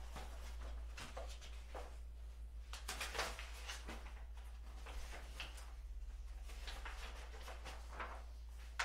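Paper rustling as sheets are handled and turned at a table: scattered short rustles with a sharper tap about three seconds in and another near the end, over a steady low electrical hum.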